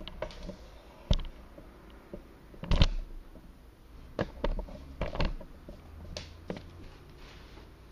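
Handling noise: a scattered series of sharp knocks and creaks, the loudest a little under three seconds in, with several more between four and seven seconds in.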